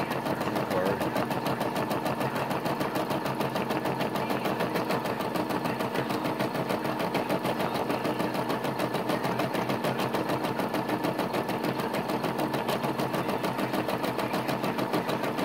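Brother SE425 embroidery machine stitching out an embroidery design, the needle running in a fast, even rhythm of stitches at a steady level.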